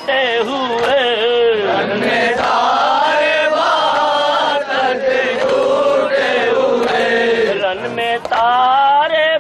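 Men chanting a Muharram lament for Husain: a single lead voice, with many voices joining in through the middle.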